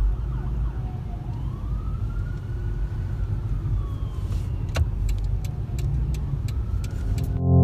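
Ambulance siren in a slow wail, faint and distant, rising and then falling once, over the low rumble heard inside a car. Electronic music starts right at the end.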